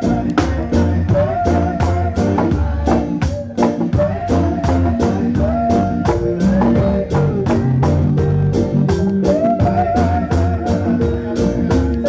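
Live reggae band playing: electric guitar over a drum kit and bass, with a steady run of drum and cymbal strikes and a recurring wavering melody line on top.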